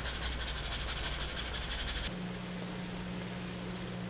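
Canvas cloth rubbed quickly back and forth along a leather edge wet with Tokonole, burnishing it smooth: a scratchy hiss of fast strokes that turns into a steadier hiss about halfway through.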